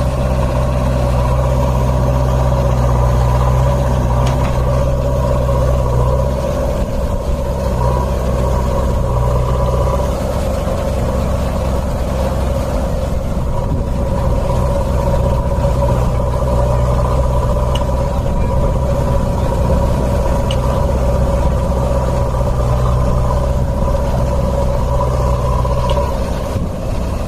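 Diesel engines of JCB 3DX backhoe loaders running at working speed as a backhoe digs and loads soil into a tipper truck, with a steady mechanical whine above the engine note; the engine tone shifts about six seconds in.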